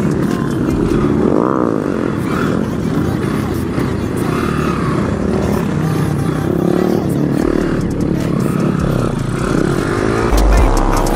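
Several small mini-bike and motorcycle engines running together, revving up and down with overlapping rises and falls in pitch.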